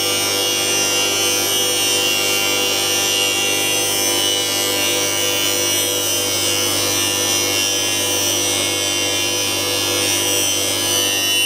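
CNC pipe-threading machine running: a steady electric motor whine and hum with many fixed tones over a high hiss, unchanging throughout.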